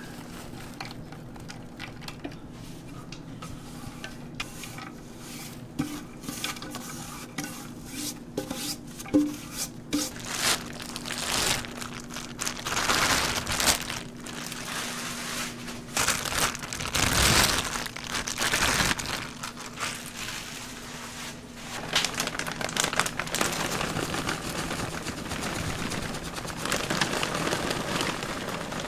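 Ingredients being tipped and shaken out of containers onto minced meat in a large stainless steel mixing bowl: chopped onion, a moist paste, then breadcrumbs, making rustling, scraping and clicking sounds that come in louder bursts through the middle. A steady low hum runs underneath for most of it.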